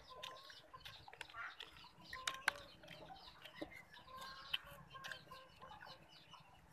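Chickens clucking faintly in the background, with a couple of sharp clicks a little over two seconds in.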